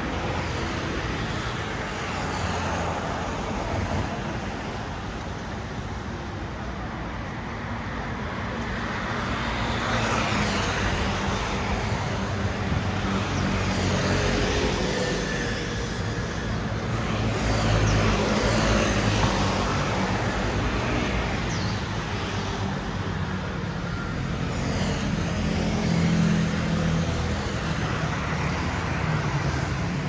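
Road traffic on a wide multi-lane city road: a steady mix of car and motor scooter engines and tyre noise, swelling several times as vehicles pass close by.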